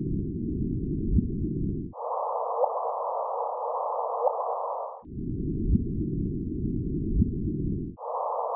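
Audio rendering of the LIGO gravitational-wave signal from two merging black holes: a band of hiss with short chirps that rise in pitch, two in each section, about a second and a half apart. It alternates between the signal at its low original pitch and the same signal shifted higher, switching about every three seconds.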